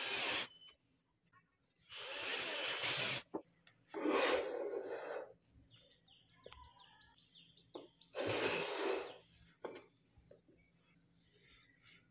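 Cordless drill-driver driving screws into a wooden frame, in four short bursts of about a second each.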